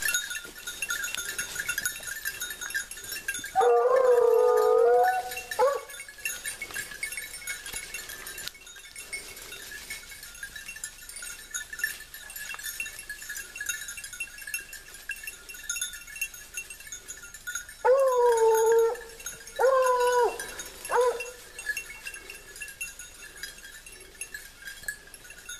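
A pack of white scent hounds giving tongue as they work a scent line (a rapproché): a couple of drawn-out bays about four seconds in, then three more later on. Each bay starts a little higher and settles into a held note.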